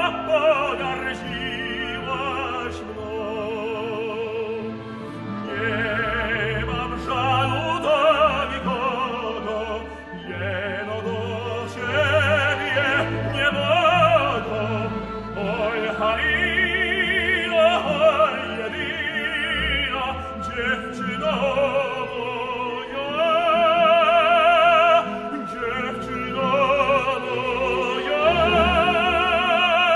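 Operatic tenor singing with wide vibrato over a symphony orchestra, with long held notes near the end.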